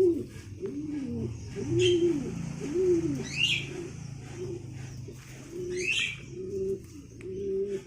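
Domestic pigeons cooing over and over, a steady run of low, arching coos. Another bird gives three short, higher calls over them.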